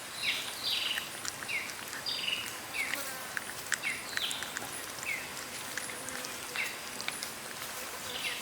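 Puppies whimpering: a string of short, high squeaks, each falling in pitch, about one or two a second, over a steady high insect hiss and scattered light clicks.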